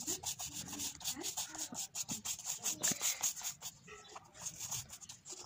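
Sponge-tipped paint brush scrubbing paint onto paper in quick back-and-forth strokes, a rapid scratchy brushing that thins out about four seconds in.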